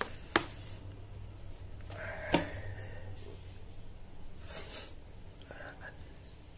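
A metal fork clicking sharply against the plate twice, about two seconds apart, as it picks at cooked catfish, then a short breathy burst of air near the middle, over a steady low hum.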